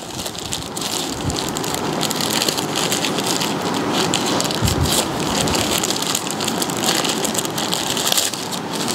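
Soft white packing wrap crinkling and rustling as it is unwrapped by hand, a dense continuous crackle close to the microphone.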